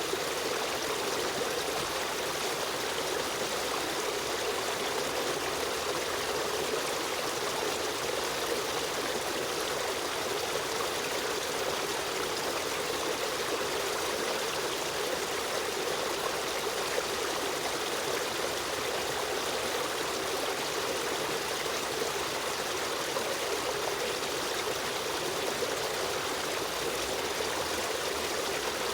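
Running water of a river stream flowing steadily, an even rushing and trickling without pauses.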